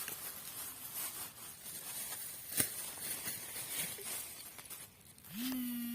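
Faint rustling, crackling background noise with one sharp click about two and a half seconds in; near the end an animal starts a long, steady call held on one pitch.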